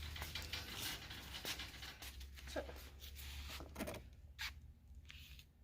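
Faint rustling and clicking of things being handled, with a brief murmur of a voice twice.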